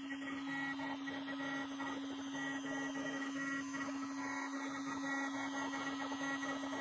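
CNC router spindle running with a steady whine while a 15-degree V-bit engraves lettering into the wooden plaque.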